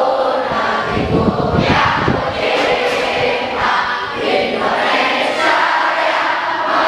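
A large crowd of school students singing together in unison, many voices blending into one sustained choral sound.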